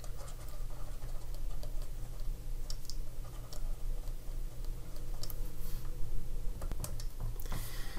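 Light ticks and clicks of a stylus on a pen tablet as words are handwritten, over a steady low hum.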